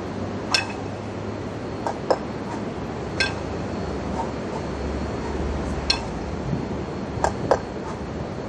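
Two 20 kg steel competition kettlebells knocking together while they are lifted through double clean-and-jerk reps. There are three ringing metallic chinks about two and a half seconds apart, with pairs of duller knocks between them, over a steady low hum.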